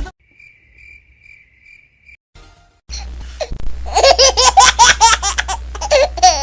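The music cuts off into a faint cricket-chirp sound effect that lasts about two seconds. About three seconds in, loud, high-pitched giggling laughter starts and keeps going in quick repeated 'ha-ha' pulses.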